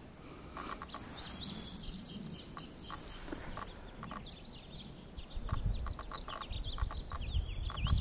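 Male lazuli bunting singing: a quick run of high, down-slurred notes, then a second phrase of shorter, slightly lower notes. A low rumble runs underneath from about five seconds in.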